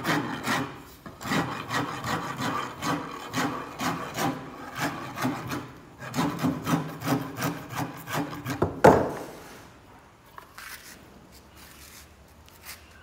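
Hand file rasping along a cricket bat's cane handle to shape it, in quick strokes about two a second. The strokes stop near nine seconds with one sharp knock, the loudest sound.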